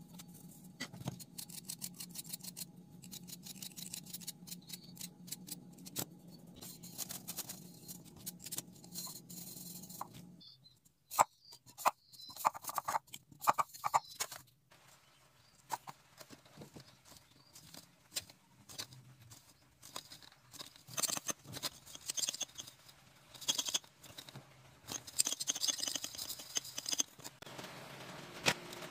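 Light clicks, taps and rustling from hands handling aluminium soda-can pieces, steel wool and thin steel rods. A faint steady hum runs underneath for the first ten seconds or so, then stops abruptly.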